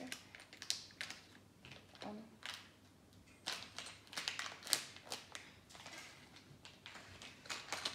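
Scissors snipping through the foil of a LEGO minifigure blind bag, a string of irregular sharp snips and crinkles as the bag is cut and pulled open.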